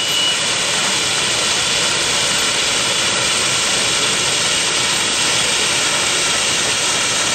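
1904 steam fire engine pumping, with a steady rushing hiss of steam venting from it.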